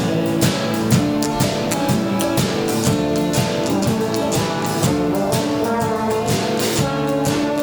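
Rock-and-roll band playing an instrumental passage: a horn section holds notes over a steady drum-kit beat.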